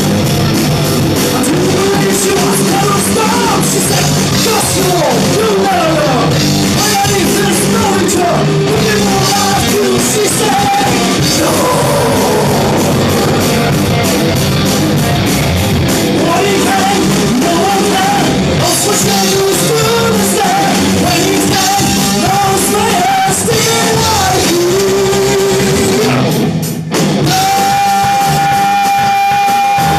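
Loud hard-rock song with singing over distorted guitar and drums. Near the end there is a brief break, then a single note is held steadily.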